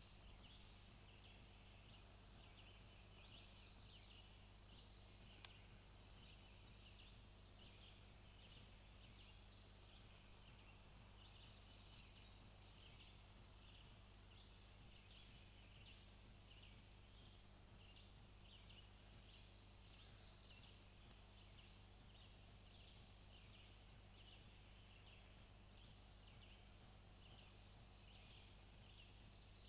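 Faint spring woodland sounds: a steady high insect trill, with a songbird's phrase repeating about every ten seconds.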